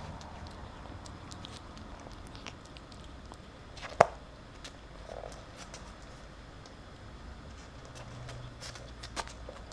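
A ferret eating treat crumbs off a hard floor right at the camera: many small clicks and crunches, with one loud sharp knock about four seconds in and a smaller one near the end.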